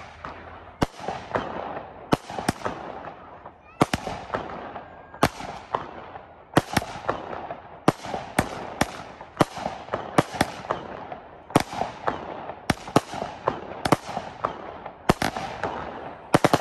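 Fireworks exploding in quick succession: more than twenty sharp bangs, one or two a second, each trailing off in a fading rumble.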